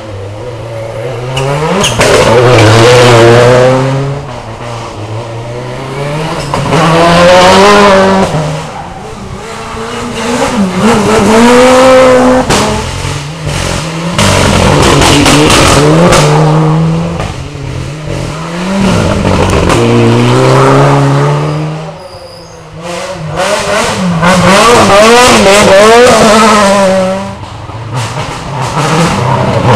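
Rally cars passing at speed on a tarmac stage, engines revving high and dropping back at each gear change. The engine note swells and fades several times as the cars go by.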